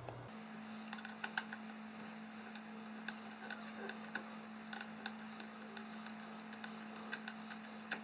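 Faint, irregular light metal clicks and ticks as a small flat screwdriver works at the screw of an AR-15 rear sight, backing it out, over a steady low hum.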